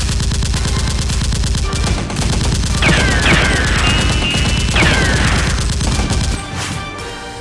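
Rapid automatic gunfire, the kind of sound effect laid over a staged Nerf battle, with shots packed closely together. A few high, falling whines cut through it about three and five seconds in. The firing stops about six seconds in.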